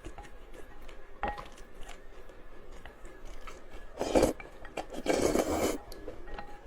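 Eating close to the microphone: light clicks of utensils against dishes, with two louder noisy mouth sounds, one about four seconds in and a longer one about a second later.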